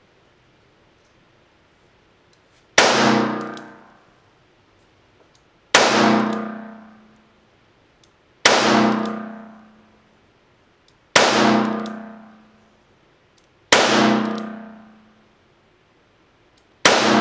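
Six gunshots from a Colt King Cobra .357 Magnum revolver fired at a slow, steady pace, one about every two and a half to three seconds, the last near the end. Each shot is a sharp crack that rings on for about a second in the echo of an indoor range.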